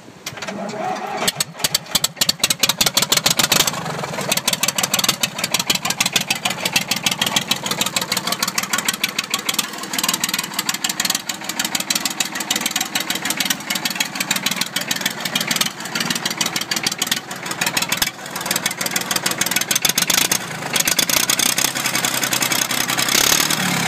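BM Volvo 320 Buster tractor engine on a cold start: it catches about a second in, fires loud and uneven for the first few seconds, then settles into steady running.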